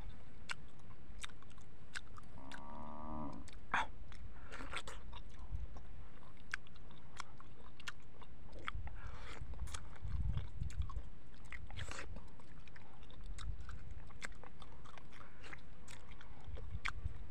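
Close-up wet eating sounds of a ripe mango being bitten and sucked off its skin and seed: many short smacking clicks and chewing. A brief pitched tone comes about two and a half seconds in.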